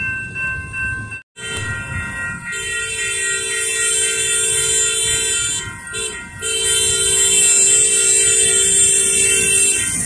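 Air horn of an approaching rail vehicle sounding a long steady blast, a short toot about six seconds in, then another long blast that stops near the end.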